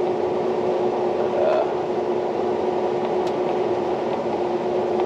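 John Deere S780 combine heard from inside its cab while harvesting soybeans: a steady machine drone with a constant humming tone.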